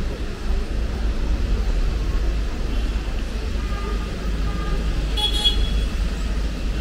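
Urban street traffic: road vehicles passing with a steady low rumble, and a brief high-pitched tone about five seconds in.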